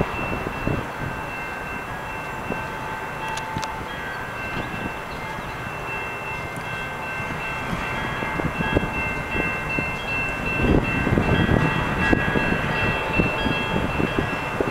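Canadian Pacific freight train led by two EMD SD40-2 diesel locomotives approaching, engines rumbling and wheels knocking on the rails, growing louder from about ten seconds in. Several steady high-pitched tones sound over the rumble throughout.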